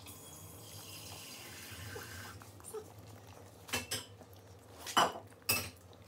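A West Highland white terrier eating a strawberry from a hand, with a few sharp clicks in the second half.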